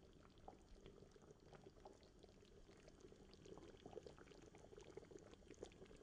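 Fish curry simmering in a pan, with faint, irregular bubbling and popping that gets a little busier past the halfway point.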